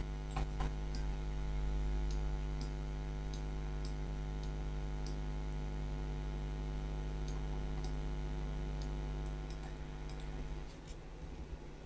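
Steady electrical mains hum with a stack of evenly spaced tones that drops in level near the end, with scattered faint clicks from a computer mouse or keyboard.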